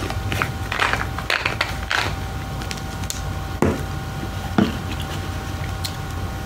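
Plastic supplement bottles being handled and set down on a tabletop: scattered knocks and clicks, the sharpest about three and a half and four and a half seconds in, over a faint steady hum.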